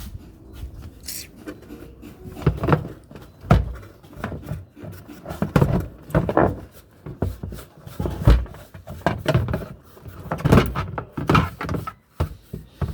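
Irregular knocks, thumps and scraping of hands working on a twin-tub washing machine, several sharp knocks among them.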